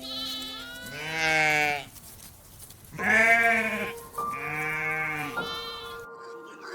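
A farm animal bleating: about four or five pitched calls, each under about a second long, over steady background music.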